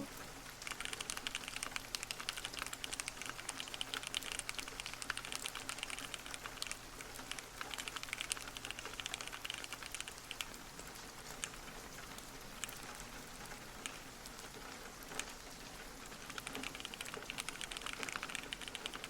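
Continuous fast typing on a Keychron Q60 mechanical keyboard with TTC HEY linear switches and clear polycarbonate keycaps: a dense patter of key strokes that thins out through the middle and picks up again near the end.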